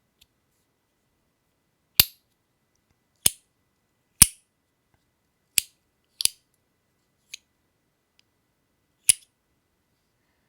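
An EDC fidget toy being snapped, seven sharp snaps at uneven intervals, one of them faint.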